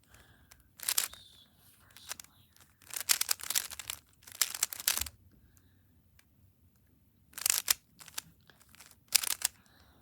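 Plastic Rubik's Cube being turned by hand, its layers clicking and clacking in short runs of quick turns with pauses between.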